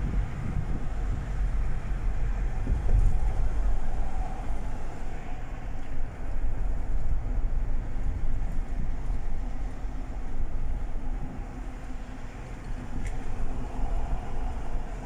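Steady low rumble of a vehicle driving, road and engine noise heard from inside the cabin.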